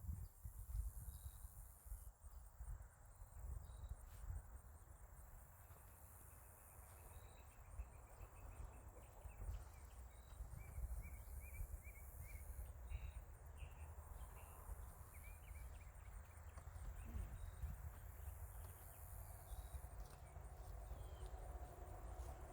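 Crickets trilling steadily in a high, fast-pulsing chorus, with a low rumble underneath.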